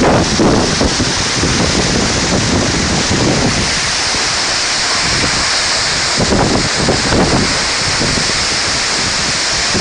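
Waterfall rushing, a loud, steady hiss of falling water, with a few muffled low surges near the start and again about six to seven seconds in.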